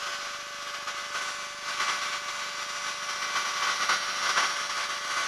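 Steady in-flight wind and engine noise of a Challenger II ultralight, passed through the open intercom as an even hiss with a faint steady hum.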